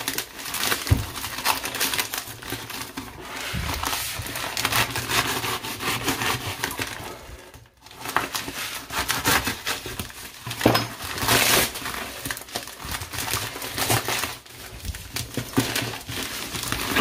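A cardboard parcel sealed with lots of packing tape being cut and torn open by hand: irregular crackling, crinkling and ripping of tape and cardboard, with a brief pause about eight seconds in.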